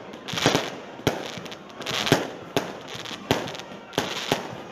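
Fireworks display: aerial shells bursting in an irregular run of sharp bangs, roughly two a second, with short spells of crackle around some of them.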